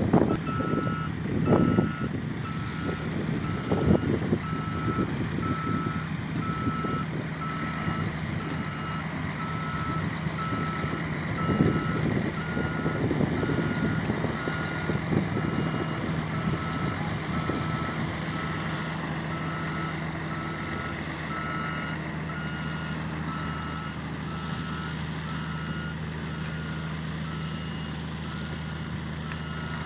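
Heavy vehicle's reversing alarm beeping in a steady, regular rhythm over a diesel engine running, with a few knocks and rumbles in the first half.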